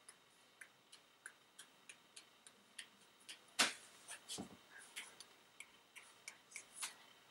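A timer ticking steadily, about three ticks a second, as the challenge runs against the clock. A single louder knock lands about halfway through, with a few softer knocks after it.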